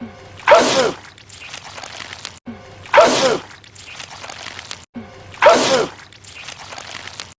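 A man's loud sneeze, the same one repeated three times about two and a half seconds apart, each a sudden burst whose pitch drops quickly.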